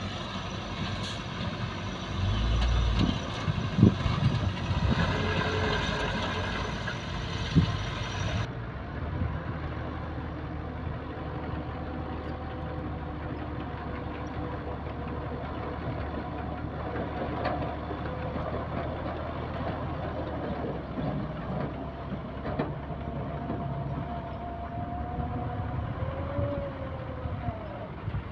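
Heavy diesel earthmoving machinery, a bulldozer and dump trucks, running steadily, with a few loud clanks in the first several seconds.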